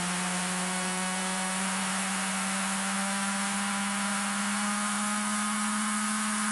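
A steady low buzzing hum over a loud hiss, its pitch creeping slowly upward.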